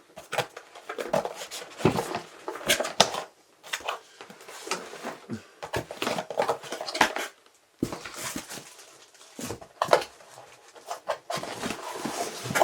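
A cardboard keyboard box and its inner packaging being handled and worked open by hand: irregular scraping, rustling and sharp knocks, with brief pauses twice.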